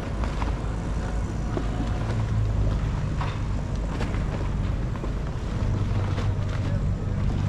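Low steady drone of a boat engine running on the water, with scattered light taps and clicks over it.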